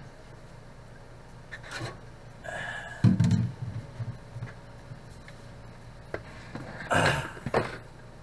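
Plastic containers being handled and set down at a stainless steel kitchen sink: a few knocks and thumps, the loudest about three seconds in and another about seven seconds in.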